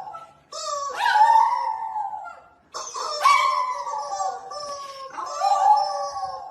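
A dog howling: three long drawn-out howls, one after another with short breaks between them.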